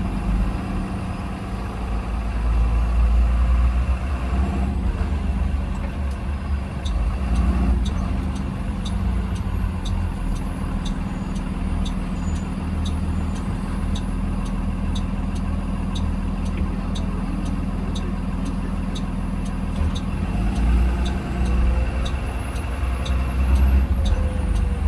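2020 Blue Bird Vision school bus engine running steadily with a low rumble, heard from inside the bus. From about seven seconds in, the indicator flasher ticks evenly, about twice a second, stopping near the end.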